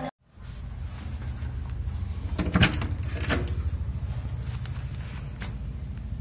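A door being opened by its metal knob: two sharp latch and handle clicks, the first about two and a half seconds in and the second just under a second later, then a few fainter clicks. A steady low rumble runs under them.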